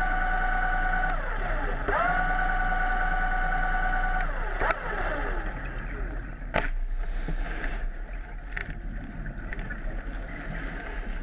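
A motor's steady whine heard underwater; it dips and climbs back to pitch about two seconds in, then winds down at about four seconds. After that come two sharp clicks and stretches of hissing, bubbling noise.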